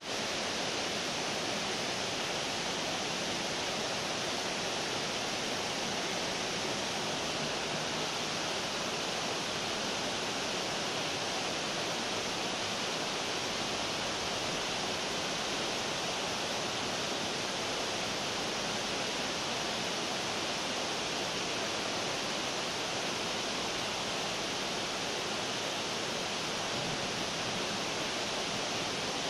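Water from a fountain's jets pouring and splashing steadily into its basin, a constant even rush.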